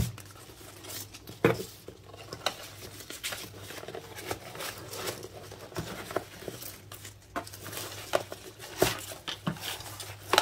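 Satin ribbon rustling and sliding over a cardboard box as hands tie it into a bow, with scattered light taps and clicks.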